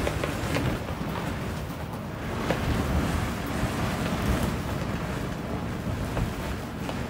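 Gusty wind buffeting the microphone, a rushing noise that swells and fades, with a few faint taps.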